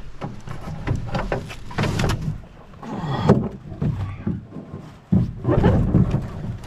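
Swift Keewaydin canoe being swung down off a portager's shoulders and set at the water's edge. Irregular knocks and scrapes on the hull, and brush rustling against it, come in bunches and are loudest in the second half.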